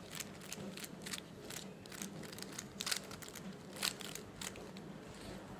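Rubik's speed cube being turned by hand: a run of quick, irregular plastic clicks as the layers are twisted.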